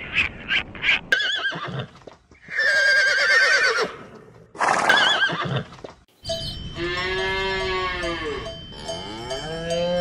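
Horses whinnying: two quavering neighs, each about a second and a half long, followed after a short pause by longer drawn-out livestock calls. A few short clicking calls come at the start.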